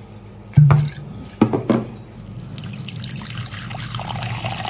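A bottle cap being twisted open, with a few sharp clicks and knocks, then liquor poured in a thin stream from a ceramic bottle into a ceramic bowl. The splashing starts about halfway through and runs steadily.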